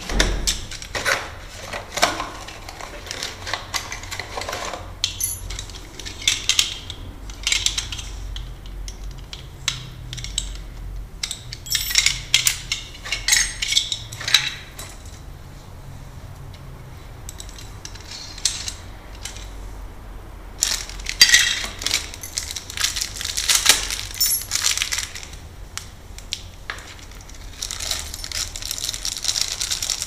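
Metal lock parts clinking, clicking and rattling in irregular bursts as a Brava 3062 storeroom knob lock set is handled and taken apart for fitting.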